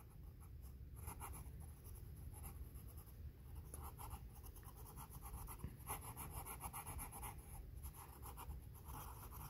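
Pencil lead scratching on sketchbook paper in short runs of quick strokes, drawing small wheels.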